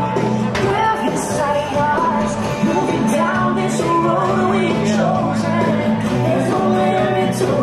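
Music with singing from the castle show's soundtrack, held notes and a sung melody running without a break.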